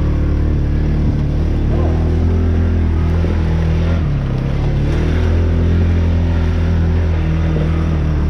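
Engine of an off-road buggy running steadily under way on a trail; its pitch drops about four seconds in and picks up again a second later.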